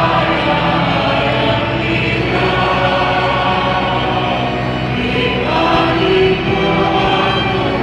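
Choir singing a hymn, with sustained, overlapping voices and no break.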